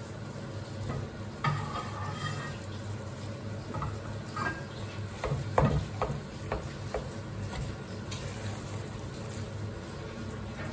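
A wooden spoon stirring and folding cooked rice into hot melted sugar syrup in a metal pot, with a steady sizzle. A few short knocks and scrapes stand out about halfway through.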